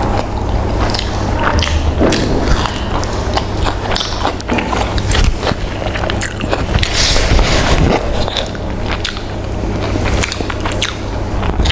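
Close-miked chewing and biting of fried chicken: many short, sharp mouth clicks and crunches, over a steady low hum.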